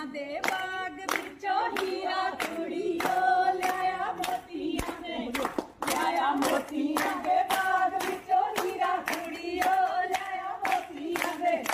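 Women singing a Punjabi gidda folk song together, with steady rhythmic hand-clapping keeping the beat.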